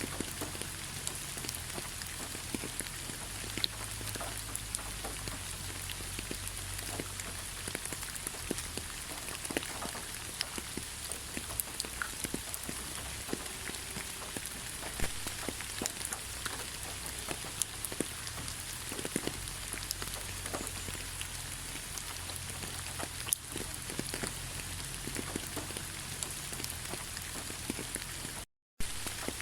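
Steady rain: an even hiss with many separate drops ticking close by and a low hum underneath. The sound cuts out completely for an instant near the end.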